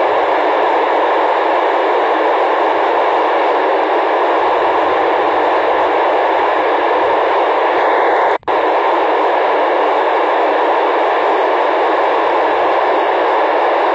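Steady hiss of an FM radio receiver with its squelch open, tuned for the PO-101 satellite's downlink, with no voice coming through. About eight seconds in, the hiss cuts out suddenly for a split second, then resumes.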